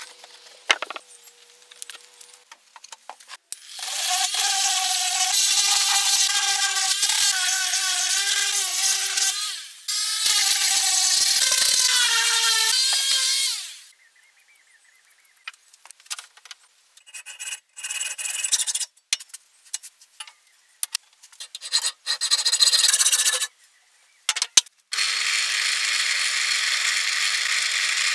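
Metalworking on hand-made hinge parts. Two long runs of loud scraping with a wavering whine, from about 4 to 13 seconds, are followed by scattered clicks and short scrapes of metal parts being handled. From about 25 seconds a wire wheel brush on a drill press runs steadily against a metal part.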